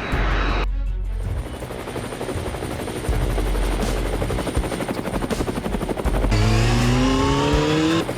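Helicopter sound effect: a rapid, dense rotor chop, joined about six seconds in by a rising engine whine that cuts off near the end.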